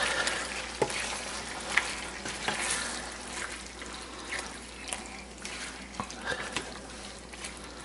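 Pork and green pepper frying in a skillet, a steady sizzle that slowly fades, with a plastic spoon stirring and knocking against the pan a few times.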